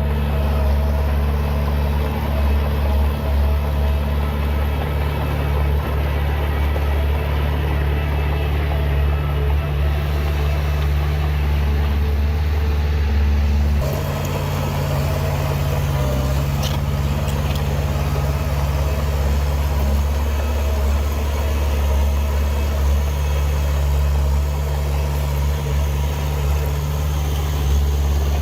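Heavy diesel engine of earth-moving machinery running steadily under load. Its note shifts and drops slightly about halfway through.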